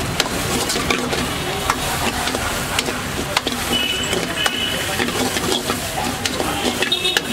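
Metal ladle stirring food in a wok over a gas flame: an irregular run of quick scrapes and clicks of metal on the pan over a steady frying sizzle.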